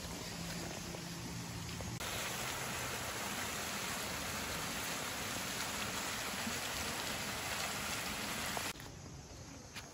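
A thin stream of water pouring down an earthen rice-terrace bank into a flooded paddy: a steady splashing rush that starts suddenly about two seconds in and cuts off abruptly near the end.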